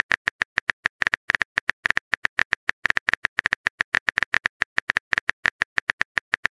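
Phone keyboard typing sound effect: a fast, even run of short clicks, about seven a second, one per keystroke as a text message is typed.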